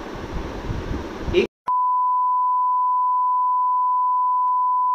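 Censor bleep: a single steady pure beep tone laid over a recited poem to blank it out. It cuts in about a second and a half in, after a short drop to silence, and holds without a break; before it there is low room noise.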